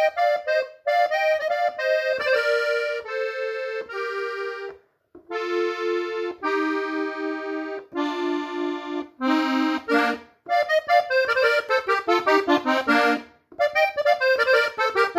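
Hohner three-row diatonic button accordion in the key of F playing a melody phrase in B-flat: several held notes stepping downward, then quicker runs of notes, broken by short pauses between phrases.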